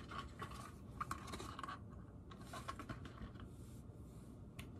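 Faint handling sounds of a new iPhone and its packaging: soft scratches, brief rustles and small clicks as the phone is turned over and touched in the hands.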